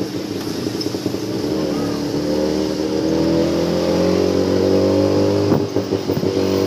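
Tuk-tuk engine running and accelerating in traffic, its pitch rising steadily for several seconds, with a few sharp knocks about five and a half seconds in.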